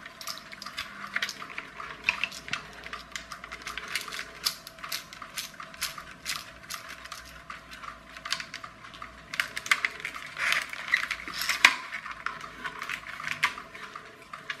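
Hard plastic parts of a clockwork toy car clicking and clattering as they are handled and pried apart: a steady run of small, irregular clicks, with one sharper click about three-quarters of the way through.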